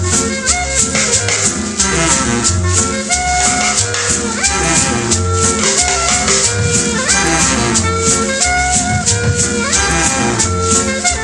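Instrumental cumbia music: shakers keeping an even rhythm over a bass line and sustained melody notes that slide up into some phrases.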